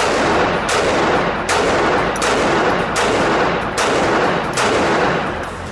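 Glock 26 9mm subcompact pistol firing a steady string of seven shots, about one every three-quarters of a second, each shot ringing on in the echo of an indoor range.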